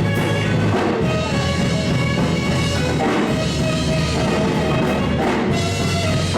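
Live worship band music with a drum kit and a steady beat.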